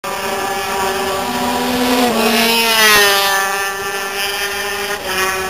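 Racing motorcycle engines at high revs on the circuit, their pitch dropping about two seconds in and again near three seconds, when the sound is loudest, as a bike passes or shifts down.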